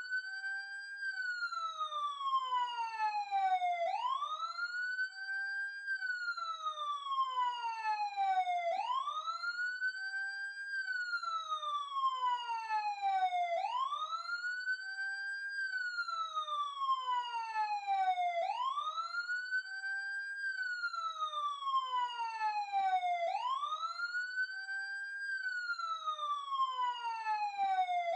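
Electronic emergency siren on a wail cycle. Each cycle rises quickly in pitch over about a second, then falls slowly over about four seconds, and repeats roughly every five seconds.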